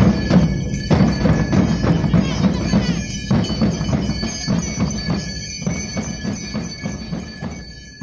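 Portuguese bombo drums played together by a drum group, a dense run of strokes that dies away near the end.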